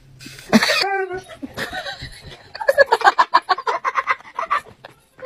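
A kitten gives a short meow about a second in. Then a dog makes a rapid string of short whining, grumbling sounds.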